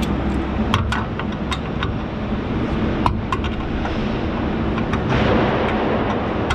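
Steady drone of industrial plant machinery with a low hum, with a series of small sharp metallic clicks from water-pump pliers working on a metal conduit fitting. The drone swells briefly about five seconds in.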